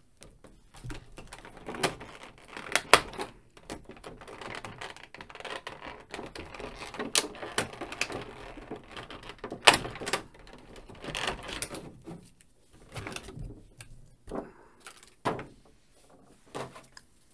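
Clear plastic blister tray crackling and clicking as an action figure is pried out of it and handled: irregular sharp clicks and crinkles, with a couple of louder snaps.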